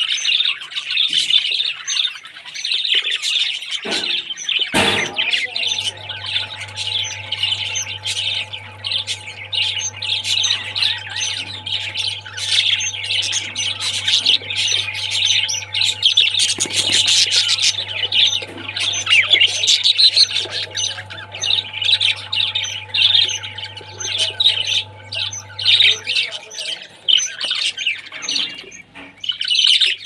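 A flock of budgerigars chattering and chirping continuously. A single knock sounds about five seconds in, and a steady low hum runs underneath from shortly after that until near the end.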